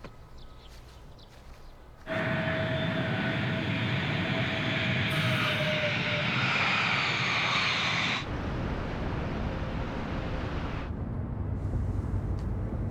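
Steady rushing engine noise with a faint high tone that falls slightly, starting suddenly about two seconds in and cutting off after about eight seconds; a lower, quieter rumble follows.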